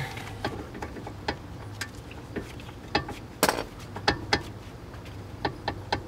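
Irregular metallic clicks and clinks of a front disc brake caliper and its hardware being handled and fitted over the rotor, with a few louder clunks about three and a half and four seconds in.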